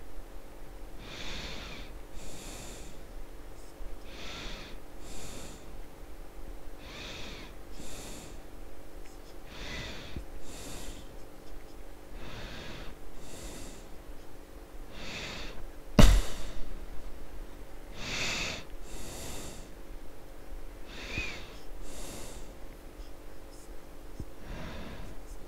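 A person breathing audibly, breaths coming in pairs roughly every three seconds over a faint steady hum, with one sharp click about 16 seconds in.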